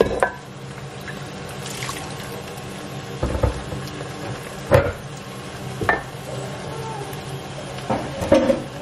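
A little water swished round an emptied pot and poured out into a stew pot, with a few sharp knocks of pot against pot.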